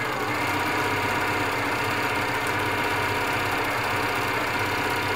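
Elna Air Electronic TSP sewing machine running steadily, sewing a wide, dense satin stitch.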